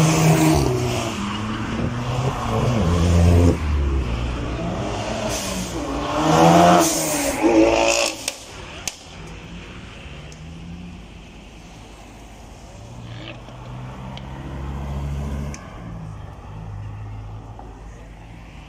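Car engine revving hard, its pitch rising and falling over and over, loudest about six to eight seconds in. After that it drops away sharply to a quieter, steadier engine sound.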